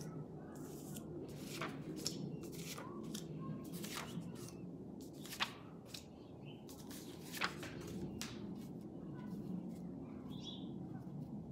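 Paper picture cards being picked up from a cloth-covered table and stacked by hand: a string of soft taps and paper rustles, with two sharper clicks about five and seven and a half seconds in.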